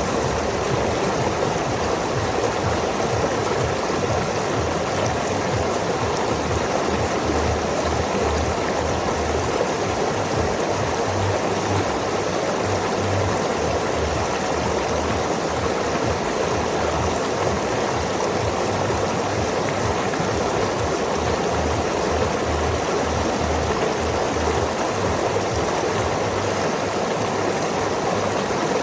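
Creek water spilling over a small waterfall: a steady, unbroken rushing with a low rumble underneath.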